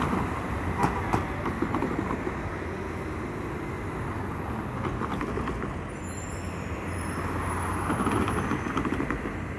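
San Diego Trolley light-rail car running past close by on street track, with a few sharp clacks about a second in. Then cars drive through the intersection, with a louder pass near the end.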